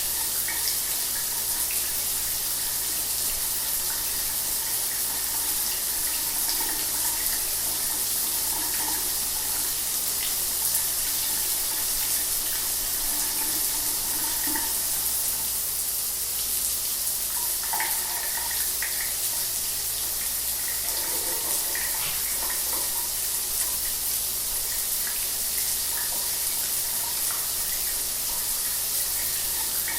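Shower running: a steady hiss of falling water, with light irregular splashing here and there.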